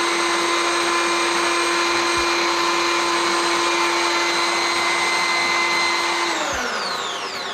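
Electric drill motor driving a mixer-grinder jar's blade, running at a steady high whine while blending a banana shake. About six seconds in it is switched off and winds down, its pitch falling.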